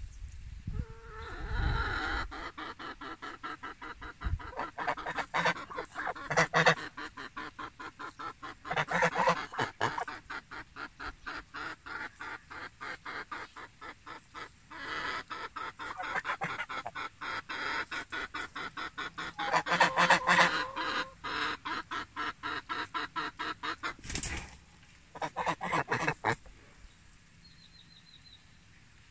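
Geese honking in a long run of quick, repeated short calls, several a second, with a few louder stretches. The calls start about a second in and stop a few seconds before the end.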